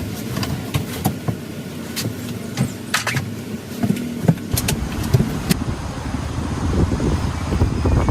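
Strong wind buffeting the microphone in a low rumble that grows heavier about halfway through, with scattered clicks and knocks over the first few seconds.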